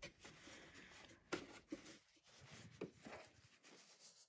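Near silence with faint rustling and a few soft taps as cotton fabric is smoothed out by hand at the sewing machine.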